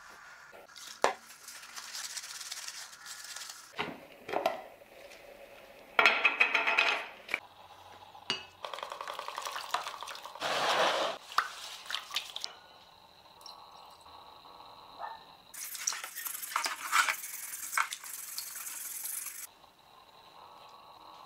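Workbench handling sounds in short bursts: scrapes, and clinks of metal against glass and hard plastic. About ten seconds in, a hiss of dry powder poured into a plastic tub of water.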